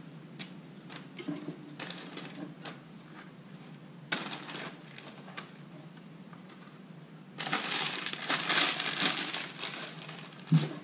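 Plastic packaging rustling and crinkling as work gloves are handled and pulled out of a box. Soft rustles and light clicks at first, then a loud stretch of dense crinkling from about seven seconds in, lasting a couple of seconds.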